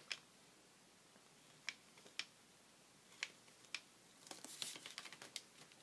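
Faint scratching of a fine-tip black marker on paper as short lines are drawn: a few separate sharp ticks of the tip touching down, then a quicker run of strokes about four seconds in.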